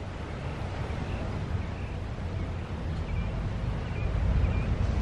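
Outdoor ambience: a low wind rumble on the microphone that grows louder toward the end, with small birds chirping faintly now and then.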